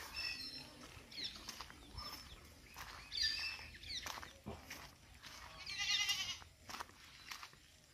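Animal calls: short high chirps, and about six seconds in one louder, wavering bleat.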